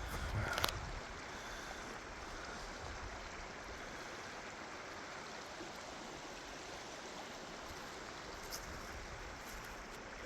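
Steady rush of flowing creek water, with a short click about half a second in.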